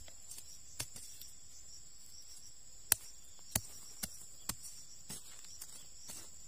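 Machete blade striking and scraping into dry, gravelly soil, digging a small hole: about six sharp, irregular strikes, the loudest a little under three seconds in. A steady high chirring of insects runs underneath.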